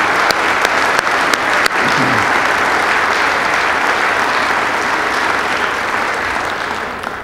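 Sustained applause from a roomful of people clapping, dying away at the very end.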